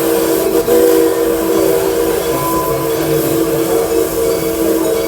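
Steam locomotive's chime whistle blowing one long, steady blast of several notes sounded together, with a brief break about half a second in.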